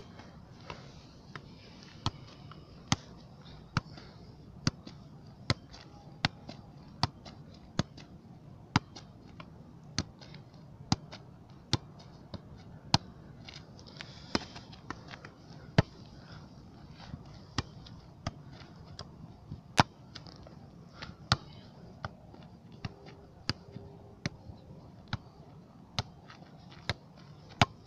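Football being juggled: a steady series of sharp thuds as the ball is struck up again and again off the foot, knee and head, about one touch a second without a drop.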